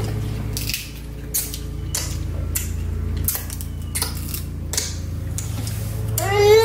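Scattered clicks and taps of dishes and cutlery during a meal, over a steady low hum. Near the end a baby lets out a long, high wail that rises and holds.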